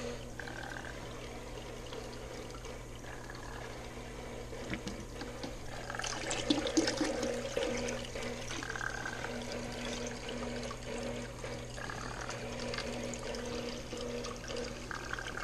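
Aquarium water running through a siphon hose and splashing into a plastic bucket, carrying gravel and slime from the tank bottom; the flow grows louder with some clicking about six to eight seconds in. A steady low hum runs underneath.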